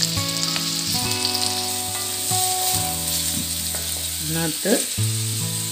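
Chopped onions sizzling as they fry in hot oil in a kadai, stirred with a wooden spatula. Steady low held tones sound underneath.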